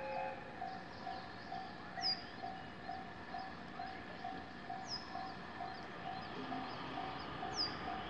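Japanese railway level-crossing warning bell ringing in an even electronic clang a little over twice a second, the signal that a train is approaching. A bird gives a short, high, falling call three times over it.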